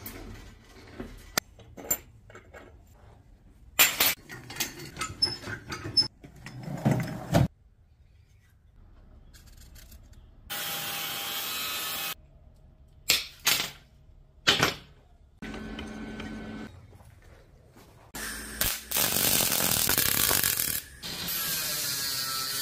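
Steel wire clicking and clattering in a hand ring roller as it is bent to size. Then an angle grinder's cut-off disc cutting through the steel wire in several separate runs, the loudest and longest near the end.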